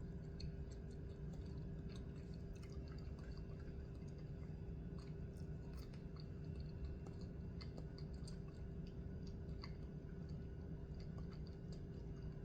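A person chewing pizza rolls: soft, close mouth clicks and small crunches scattered irregularly over a steady low hum.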